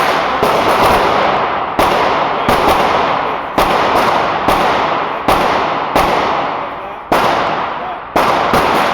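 Pistol shots from a .40-calibre Glock, about a dozen fired at irregular intervals, each crack followed by a long echoing tail.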